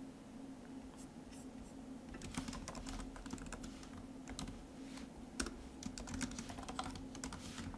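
Typing on a computer keyboard: irregular runs of quick key clicks, over a faint steady hum.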